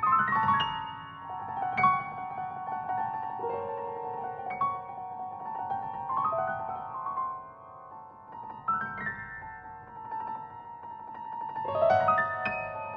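Solo piano playing a slow classical piece: struck notes and chords in the upper-middle register ringing out with the sustain, with fresh clusters of notes every few seconds and a quieter stretch around the middle.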